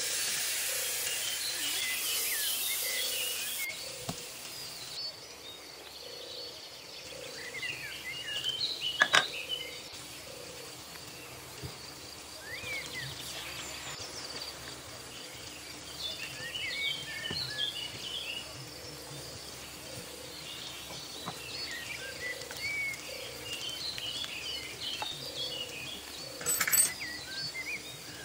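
Meat sizzling on a grill pan for the first few seconds, cutting off abruptly. After that, birds chirp over a steady low background hiss, with a couple of sharp clinks.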